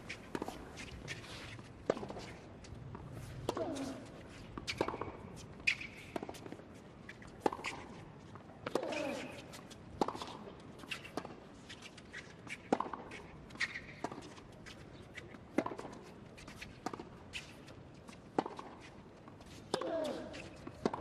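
A long tennis rally on a hard court: racquets strike the ball back and forth about every second and a half, and a player's short grunt comes with several of the shots.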